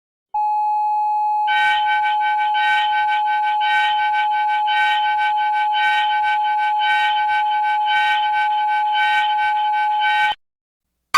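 Synthesized emergency-alert alarm tone: a steady single electronic tone, joined about a second in by a chord of higher tones that pulse about twice a second, then cuts off suddenly near the end.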